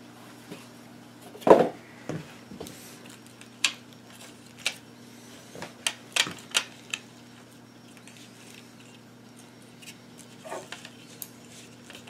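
Hands handling the opened plastic case and parts of a small portable shortwave radio: scattered clicks and light knocks, the loudest about a second and a half in, with a faint steady hum underneath.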